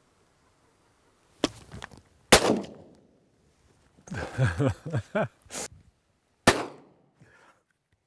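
Shotgun shots fired at doves and pigeons flying overhead: three loud reports, the loudest a little over two seconds in, and a fainter crack between the second and third.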